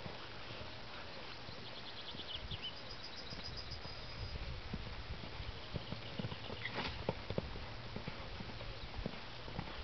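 Hoofbeats of a horse cantering on a sand arena surface, faint and muffled by the distance and the soft footing.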